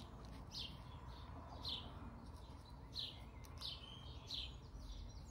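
A bird chirping, faint short falling chirps repeated about every half second.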